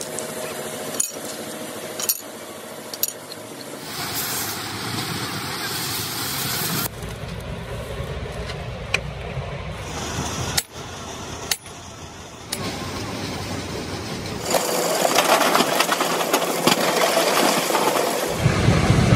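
A run of short work-site sounds from a stone crusher repair: sharp metallic clinks and knocks, then heavy sledgehammer blows on the crusher's steel shaft and flywheel parts, and near the end a loud low rumble as a dump truck tips rock into the crusher hopper.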